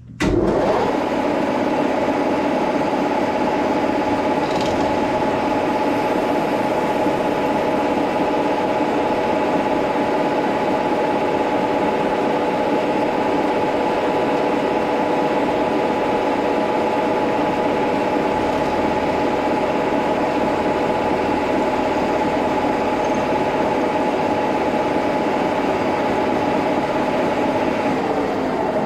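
Brown & Sharpe No. 2 milling machine's vertical head starting up just after the start and running steadily at 1200 rpm, a constant whine of several steady tones, as a 3/16-inch carbide drill bores through a hardened hand file.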